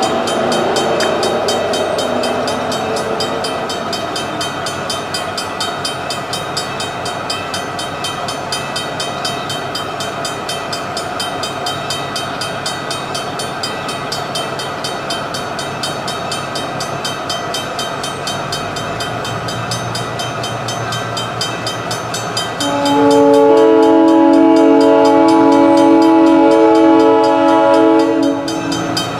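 A train running with a steady rumble. Near the end, a locomotive's multi-chime air horn sounds one long blast of about five seconds, the loudest sound here.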